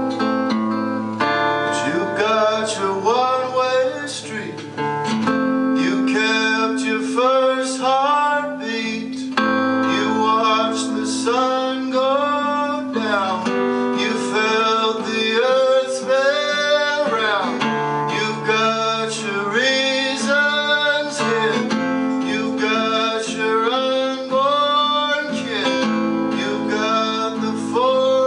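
Live music: an acoustic guitar strummed in steady chords, with a man's voice singing long, sliding notes over it.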